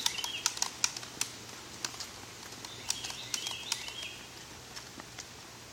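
Footsteps on an outdoor path, irregular sharp scuffs and clicks, with a bird chirping briefly twice, near the start and again a few seconds in.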